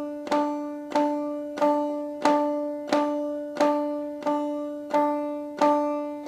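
Five-string banjo played with the basic clawhammer down-strum: about ten even strums, one every two-thirds of a second, on the same chord, each ringing and fading before the next.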